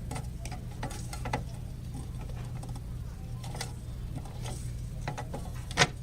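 Scattered light clicks and taps over a steady low electrical hum, with one sharper knock near the end.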